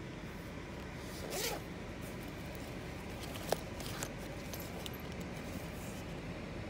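Zipper on a fabric waist bag being pulled open in a few short zips, with a sharp click about halfway through, over a steady low hum.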